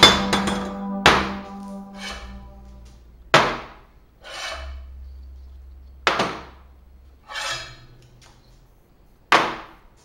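Homemade welding magnets being set down and snapping onto a steel workbench top: five sharp clacks a couple of seconds apart, with softer knocks between them.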